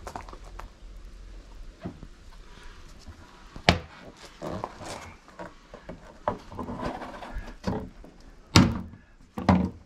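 Plastic tailgate trim panel being pulled loose by hand: scraping and rattling, with sharp clicks and knocks as its clips let go. The loudest come about four seconds in and twice near the end.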